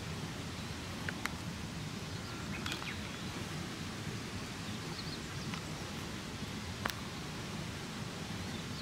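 Outdoor ambience: a steady low background rush with faint bird chirps, and a few small clicks and rustles, the sharpest about seven seconds in.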